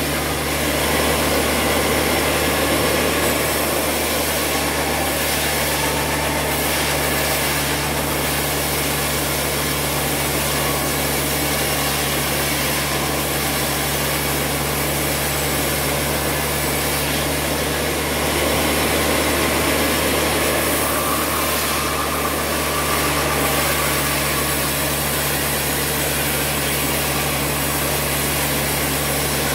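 Large mill band saw running steadily and resawing a timber plank, a constant machine hum with the noise of the blade cutting through the wood. It swells slightly now and then as the cut loads it.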